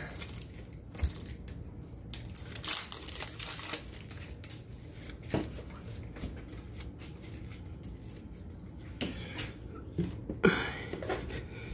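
Foil booster-pack wrapper crinkling and tearing as a pack of Pokémon trading cards is opened, then the cards rustling as they are handled.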